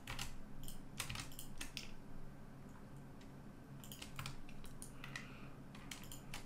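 Keystrokes on a computer keyboard: short, irregular clusters of clicks as shortcut keys are pressed, over a faint steady low hum.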